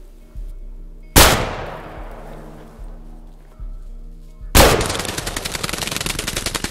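Two shots from a double-barrel 12-gauge shotgun about three and a half seconds apart, the first trailing off slowly. Right after the second shot, a ruffed grouse that has been hit beats its wings rapidly in the dry leaves.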